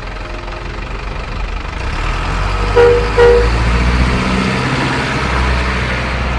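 Radio-controlled truck wading through muddy water with a steady low engine rumble and splashing, and two short horn toots close together just under halfway through.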